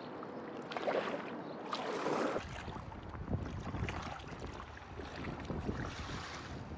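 Kayak paddle blades dipping and splashing in floodwater, stroke after stroke. From about two seconds in, wind rumbles on the microphone under the splashes.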